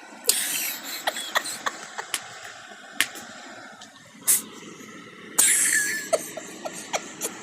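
Dog sneezing: a sharp sneeze just after the start and another about five seconds later, with a shorter burst between them and scattered light clicks.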